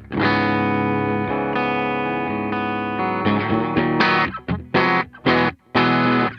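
Squier Paranormal Cabronita baritone Telecaster with P90 pickups, played through an amp simulator. One chord rings out for about three seconds, then a run of short, choppy chords follows from about four seconds in.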